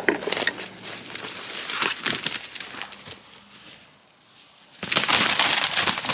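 Footsteps crunching through forest leaf litter, then a lull, and nearly five seconds in a loud, rapid flapping: the wings of a freshly shot eastern wild turkey gobbler beating as it is grabbed, thrashing against the leaves.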